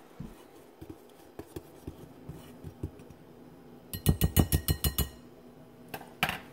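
Wire whisk stirring dry flour in a glass mixing bowl, with soft scattered scrapes and clicks, then a quick run of about nine sharp clinks of the whisk against the glass bowl about four seconds in, and one more knock near the end.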